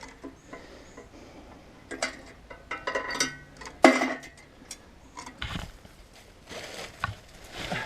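Irregular metallic clinks, knocks and rattles from handling the bullet-damaged steel safe's door locking mechanism, with one sharper clank about four seconds in.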